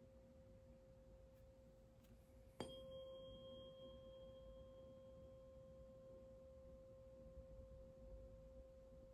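Tuning fork ringing faintly with a steady pure tone, struck again about two and a half seconds in, then ringing on and slowly fading.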